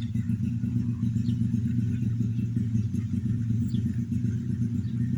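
Small single-cylinder model airplane engine with spark-plug and battery ignition, running steadily at a constant speed.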